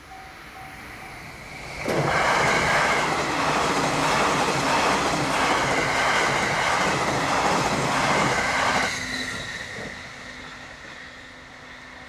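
E657 series electric express train passing close by at speed: a loud rush of wheels on rail and air that starts abruptly about two seconds in, with the clatter of the cars going over the rail joints, then fades after about nine seconds as the train runs away. In the first second a level-crossing alarm's repeated beeping can still be heard.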